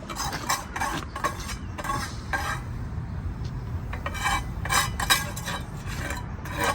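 Mason's steel trowel scraping and clinking against mortar and brick in short, irregular strokes while a chimney is being laid up.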